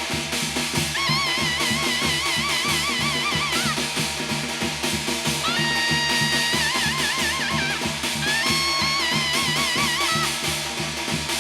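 Korean shamanic gut ritual music: fast, dense drumming under a bright melody instrument playing long held notes with a wide, regular vibrato, in three phrases with short breaks between them.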